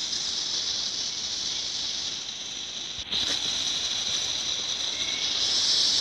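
Cicadas buzzing, a steady high-pitched hiss that dips briefly about three seconds in and then comes back louder.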